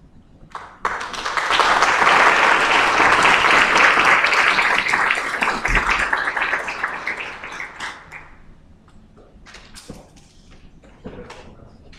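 Audience applauding, starting about a second in and dying away after about eight seconds, with a few scattered claps near the end.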